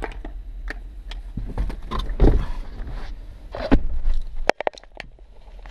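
A few sharp stiletto-heel clicks on pavement, then rumbling bumps and knocks as a dashboard camera is handled and moved inside the car. It ends in a quick run of loud sharp clicks.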